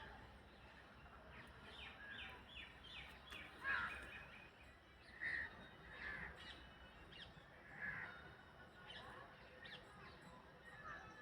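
Faint bird calls: single harsh calls every second or two, with a quick run of about six short notes about two seconds in.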